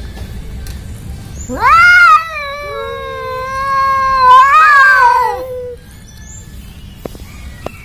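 Domestic cat yowling in a face-off with another cat, a hostile caterwaul. One long drawn-out call rises, holds steady for a couple of seconds, then swells again and falls away.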